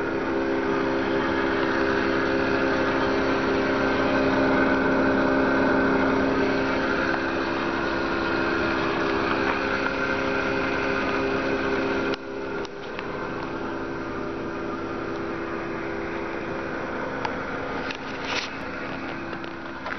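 Subaru Sambar van's small four-cylinder kei engine idling steadily. It drops suddenly in level about twelve seconds in, and there is a brief click near the end.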